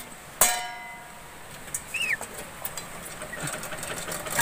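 Metal pan of a dial weighing scale clanging once about half a second in, ringing briefly as it dies away. Around two seconds in, a chicken gives a single short falling peep, with light clicks and rustling besides.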